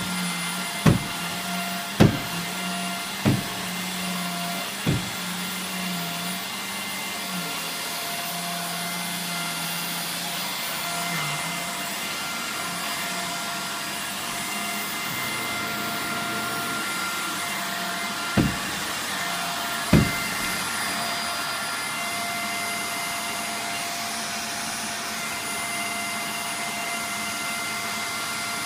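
Bagless upright vacuum cleaner running steadily, a motor whine over a rushing hiss. Several sharp knocks stand out: four in the first five seconds and two more about eighteen and twenty seconds in.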